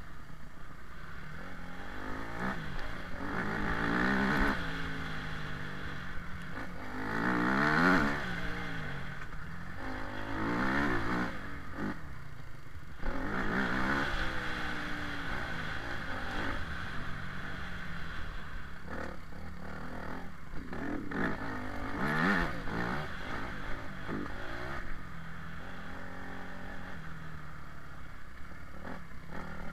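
Small off-road motorcycle engine revving up and falling back again and again, with short knocks and rattles from riding over rough ground.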